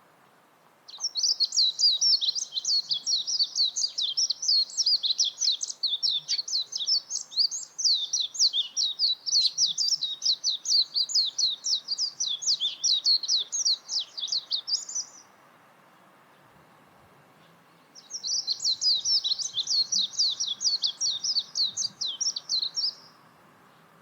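Warbling (Japanese) white-eye singing: two long runs of rapid, high twittering notes, the first lasting about fourteen seconds and the second about five, with a short pause between them.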